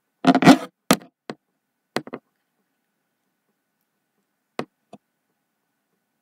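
A few short, sharp clicks and knocks: a louder cluster just after the start, single clicks around a second and two seconds in, and a pair near the end, with dead silence between them.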